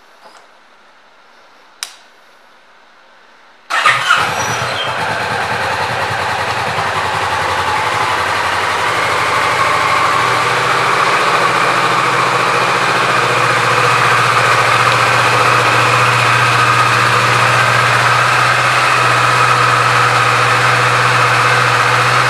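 Kawasaki Vulcan S 650's parallel-twin engine is started from cold silence: a single click about two seconds in, then it cranks and catches about four seconds in and settles into a steady idle.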